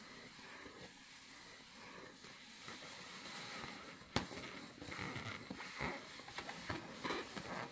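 Claws scratching and rubbing at a rubber balloon, with a sharp tap about four seconds in and a run of quick scrapes and squeaks after it.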